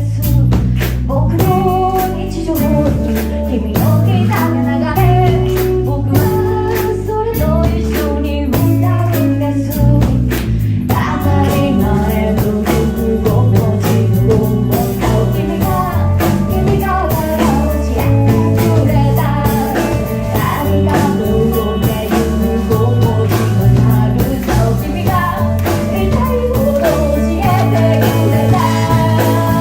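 A rock band playing live with a lead vocal over electric guitar, bass and drum kit, with a steady driving beat.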